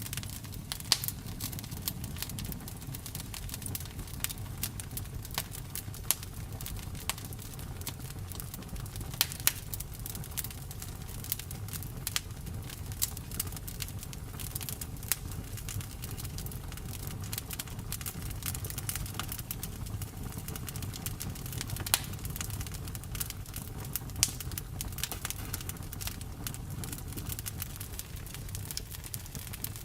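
Campfire burning, wood crackling and popping with irregular sharp snaps over a steady low rumble of the flames.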